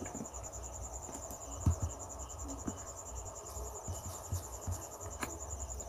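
A cricket trilling steadily in a high, fast-pulsing tone, with low hum beneath and a few faint clicks.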